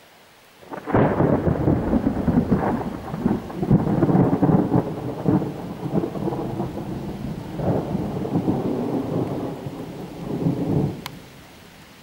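Rolling thunder: a loud rumble sets in about a second in and rolls on in waves for about ten seconds, then dies away near the end. A steady hiss of rain runs underneath.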